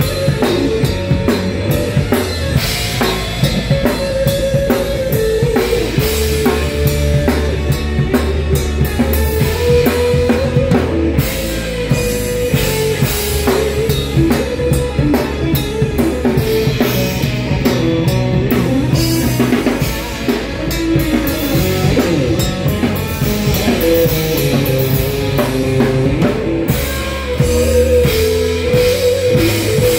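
Live rock band playing, with the drum kit's cymbals, snare and bass drum up close over electric bass and keyboards, heard from the stage beside the drummer.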